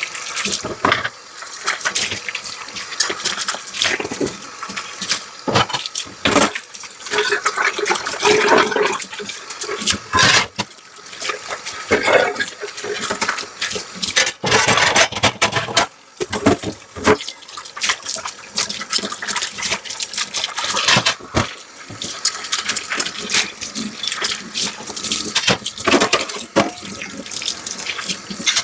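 Tap water running into a kitchen sink while dishes are washed by hand, with splashing and irregular knocks of dishes against each other and the sink.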